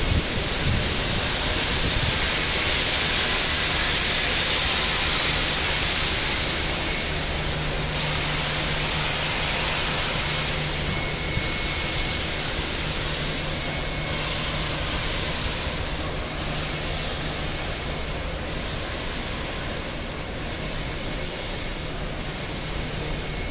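Steam hissing steadily from the Victorian Railways R class 4-6-4 steam locomotive R707, loudest in the first several seconds and slowly easing off. A low, steady engine hum runs underneath from about eight seconds in.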